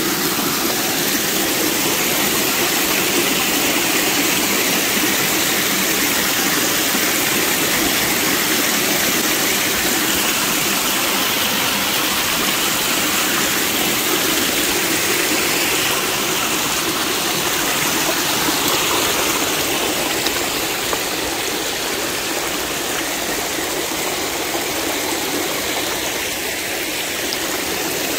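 Creek water rushing steadily, a loud, even sound with no breaks.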